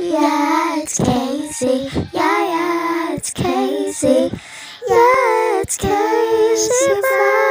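A high voice singing a melodic line in short phrases, with breaths and s-sounds between them and a long held note near the end.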